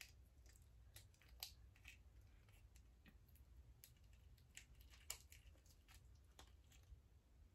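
Faint, scattered small clicks and crackles of eating a lobster tail, its meat being pulled apart and chewed.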